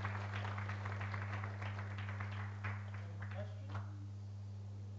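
Audience applauding, the many claps fading out near the end, over a steady low hum.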